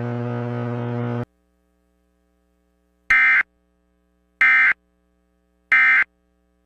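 A low, steady droning tone cuts off abruptly about a second in. After a pause come three short, identical bursts of warbling data tones about 1.3 s apart: the SAME end-of-message (EOM) codes that close an Emergency Alert System broadcast.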